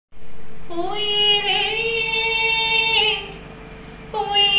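A woman singing unaccompanied in long held notes with a wavering vibrato. One phrase rises into a sustained note and fades near the three-second mark, and a second phrase begins about four seconds in.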